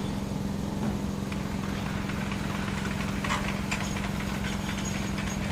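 An engine running steadily at idle with a constant low drone, and a few light clicks over it.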